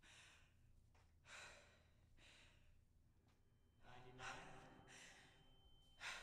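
A woman's heavy, sighing breaths, a few of them about a second apart, as she starts to hyperventilate in a panic attack. A faint high steady tone comes in partway through.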